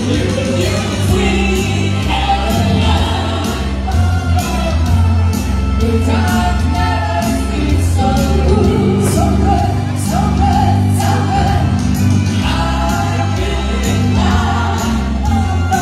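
Amplified pop-style song with a steady bass beat and several voices singing together, played loud through a hall sound system.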